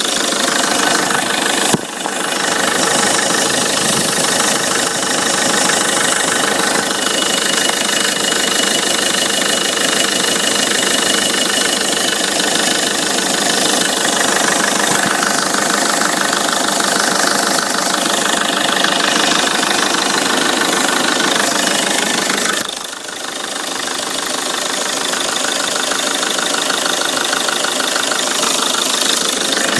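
Peugeot 307's 2.0 HDi 136 four-cylinder diesel engine running steadily, making the strange abnormal noise that its owner cannot identify.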